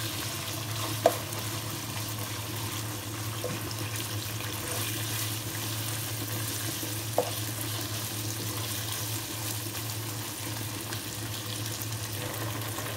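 Boneless chicken strips sizzling steadily in hot oil in a nonstick wok as they are stirred and turned with a spatula, with two sharp clicks, about a second in and about seven seconds in.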